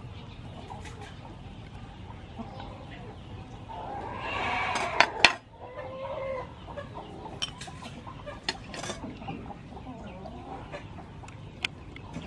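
Chickens clucking, with a longer call about four seconds in and a shorter one near six seconds. Two sharp clicks just after five seconds in are the loudest sounds, with fainter small clicks scattered throughout.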